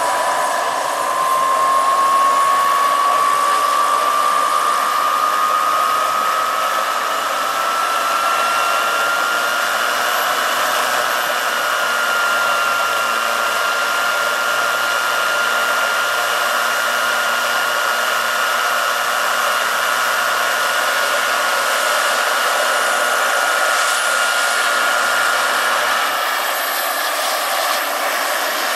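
The electric motor and main rotor (2.65 m across) of a large scale-model Hughes 500 helicopter spooling up on the ground. A motor whine climbs in pitch over the first ten seconds or so and then holds steady, over a loud, even rush of rotor noise, as the rotor comes up to speed before lift-off.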